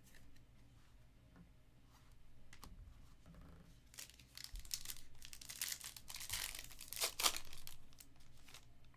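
Foil wrapper of a Panini Prizm trading-card pack being torn open and crinkled by hand: a few faint handling clicks, then a run of sharp tearing and crackling from about four seconds in, loudest near the end.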